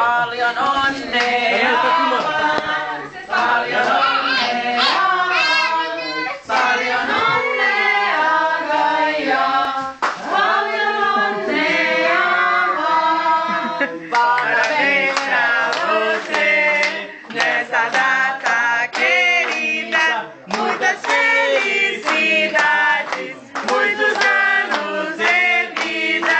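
A group of people singing together, with hands clapping along. The lit candle on the cake makes it a birthday song.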